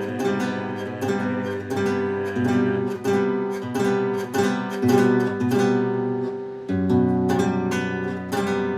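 Acoustic guitar strummed in a steady rhythm, with a change of chord about two-thirds of the way through.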